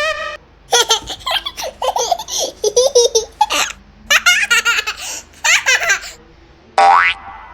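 A baby laughing in a run of short, repeated bursts of giggles. Near the end a brief rising whistle-like tone sounds once.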